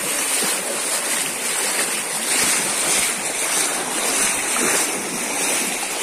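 Feet splashing and sloshing as people wade through a shallow, fast-flowing muddy stream, over the steady rush of the water.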